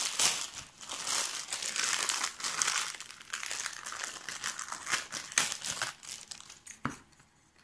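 Plastic packaging crinkling and crackling as it is handled and pulled off by hand. It stops about seven seconds in.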